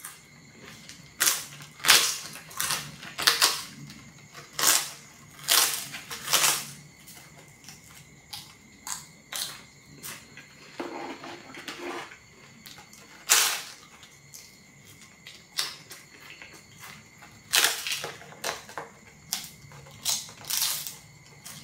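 Close-up crunching of thin, crispy flatbread crackers being bitten and chewed, a series of sharp crackling crunches. A quick run of crunches comes in the first seven seconds, then a quieter stretch of softer chewing, then another run near the end.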